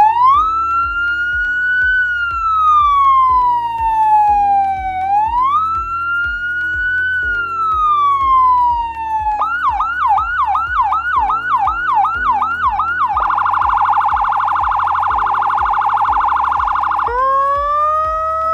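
Boss 200-watt electronic police siren working through its tones. First come two slow wail cycles, each rising and then falling. Then about four seconds of yelp at roughly three sweeps a second, then about four seconds of a much faster warble, and near the end a new wail starting to rise. A soft beat of background music runs underneath.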